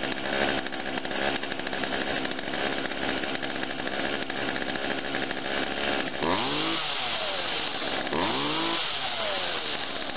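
Two-stroke chainsaw engine idling steadily just after a cold start with the choke pushed back in, revved up and back down twice about six and eight seconds in. It settles at idle right away, which the owner takes as the sign of a healthy machine.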